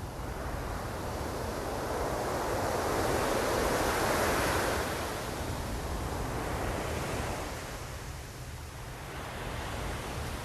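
Ocean surf: a wave breaks and washes in, swelling to its loudest about four seconds in and then easing off, with smaller swells later on.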